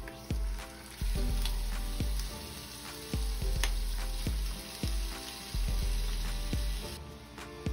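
Pieces of octopus and tomato wedges dropped into a hot frying pan of bacon, sizzling in the oil, with light taps as they land.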